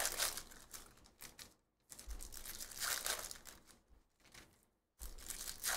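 Trading cards being flipped through and squared up by hand: a rapid clicking and rustling of card edges sliding and flicking against each other. It comes in three bursts about two seconds apart.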